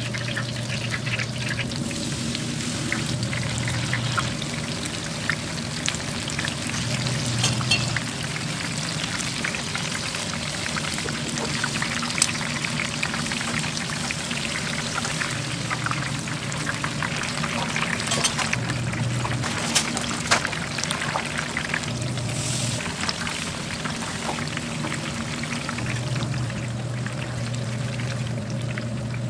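Vegetables sizzling in a hot pan: a steady hiss with scattered small pops and crackles, over a low hum that comes and goes.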